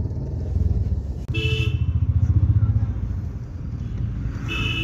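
Steady low rumble of a car driving in town traffic, heard from inside the cabin, with two short car horn honks, one about a second and a half in and one near the end.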